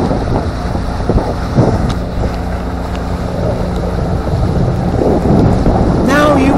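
Wind buffeting the microphone on a pontoon boat under way, over the steady hum of the boat's motor.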